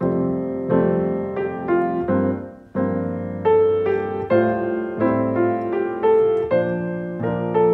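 Piano offertory music: chords struck one after another at a slow, steady pace, starting suddenly.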